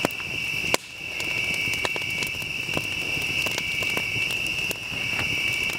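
Wood campfire crackling, with irregular sharp pops and one louder pop about three-quarters of a second in, over a steady high-pitched buzz.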